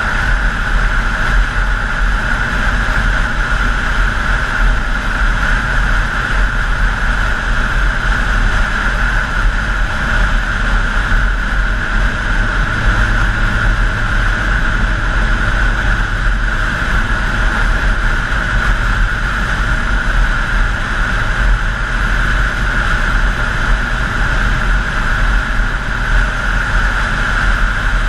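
Wind rushing over a helmet-mounted GoPro at steady road speed, with the Honda CBR1000F's inline-four engine running underneath. The sound is loud and even throughout, with no gear changes or revs standing out.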